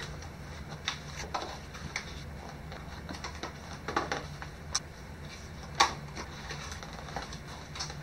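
Irregular rustling and clicking of cardboard boxes and paper packaging being handled, with a sharp tap about six seconds in, over a steady low hum.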